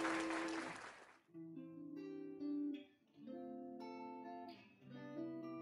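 Soft outro music on a plucked acoustic guitar: chords held about a second and a half each, with short breaks between them. In the first second, the tail of a noisy swish fades away before the guitar comes in.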